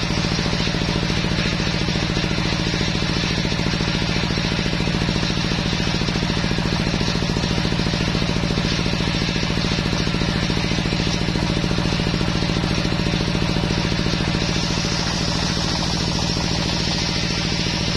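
Belt-driven circular table saw running steadily with a fast, even pulse while a teak plank is ripped lengthwise through the blade.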